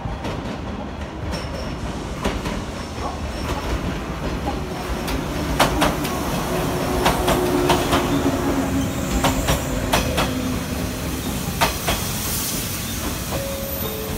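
Yellow JR West suburban electric train running into the station over the points. A steady rumble is broken in the middle by a run of sharp wheel clacks over rail joints and crossings, loudest as the cars pass.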